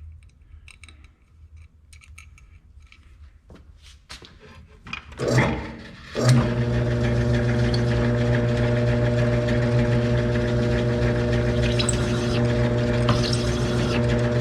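Shop machine's electric motor, most likely the drill press used for countersinking, switched on about six seconds in and running steadily with an even hum. Before that there are only a few light clicks of handling.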